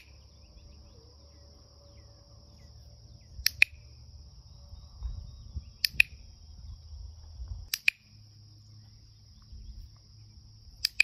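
A handheld dog-training clicker snaps four times, about every two seconds; the first is a quick double click. The clicks are being paired with treats to give the click its meaning as a reward marker.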